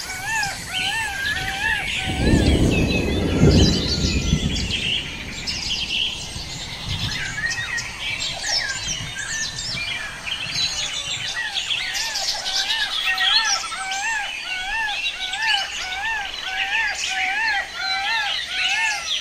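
Forest birdsong: many birds chirping, over one steady repeated call about twice a second. A brief rushing noise comes about two seconds in.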